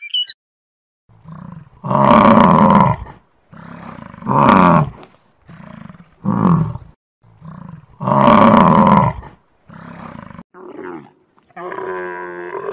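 A series of loud, drawn-out bellows from Highland cattle, repeated about every two seconds. Near the end a dromedary camel starts a long, rumbling grumble.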